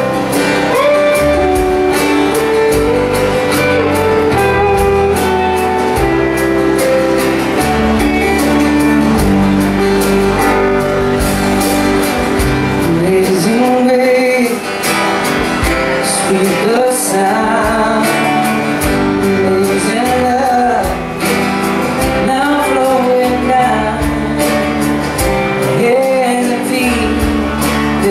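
Live band performing a worship song: a man sings the lead melody over strummed acoustic guitars and an electric guitar, with a steady beat.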